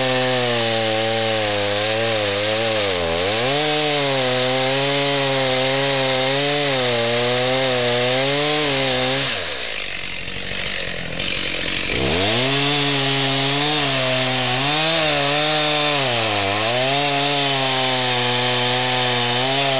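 Chainsaw cutting into a Douglas fir trunk to fell it, its engine pitch dipping and recovering as the chain loads in the cut. About halfway it drops to a low idle for a couple of seconds, then revs back up and goes on cutting.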